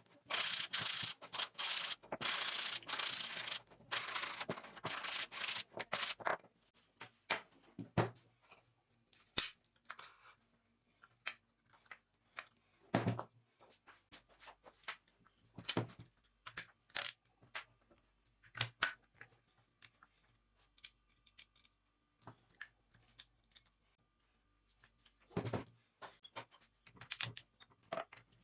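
Several seconds of rough rubbing strokes in quick succession, then scattered light clicks and knocks of handling.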